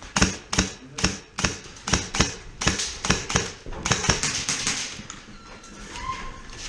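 Classic Army ML10 airsoft rifle fired in quick, irregular single shots, about three sharp snaps a second for roughly five seconds, then stopping.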